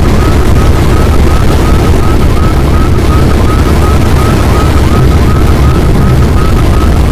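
A loud, steady low rumble with a short, rising electronic chirp repeating about three times a second.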